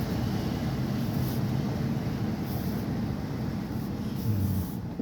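Dodge Durango's 5.7 Hemi V8 running steadily on the move, a low even hum with road noise and no ticking, its spark plugs freshly replaced to cure a spark-related misfire tick.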